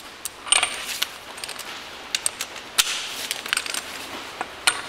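Torque wrench ratcheting on a VW Golf mk4's front axle nut as it is tightened to 50 Nm: sharp metallic clicks in short, irregular runs.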